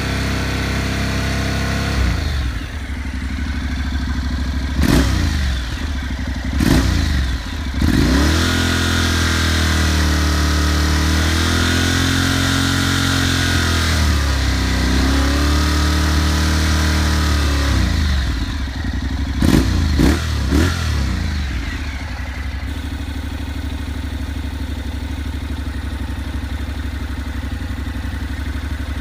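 Honda NC700X parallel-twin engine and exhaust idling, then revved: a few sharp blips of the throttle, about ten seconds of raised revs rising and falling, three more quick blips, and back to a steady idle.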